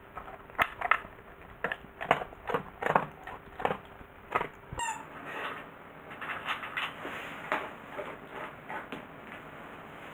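A German Shepherd chewing dry kibble from its bowl: a run of irregular crunches, several a second, loudest in the first half.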